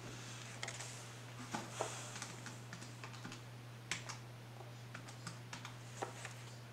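Paper cash and a paper budget sheet being handled: scattered light clicks and taps with short bursts of paper rustling, over a steady low hum.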